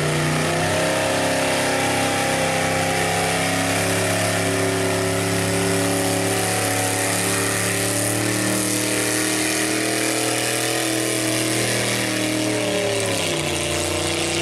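Small-block gas V8 of a 4x4 pulling truck running hard under load as it drags a weight-transfer sled. The revs climb in the first second, hold nearly steady through the pull, and fall off about thirteen seconds in as the driver lets off.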